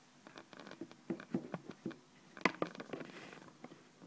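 Light clicks and rustles of a plastic takeaway bento lid being handled on a wooden table, with one sharper click about two and a half seconds in.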